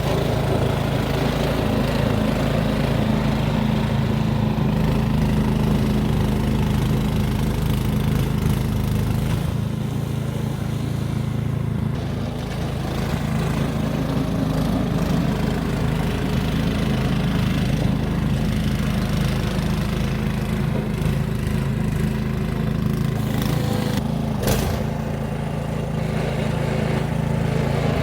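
Gas-powered snow blower engine running steadily, easing slightly in loudness partway through, with one sharp click or knock near the end.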